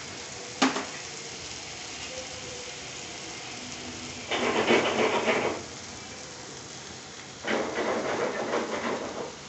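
Chicken steak sizzling steadily in a hot grill pan, with a sharp click just under a second in and two louder swells of crackling, about four and seven and a half seconds in.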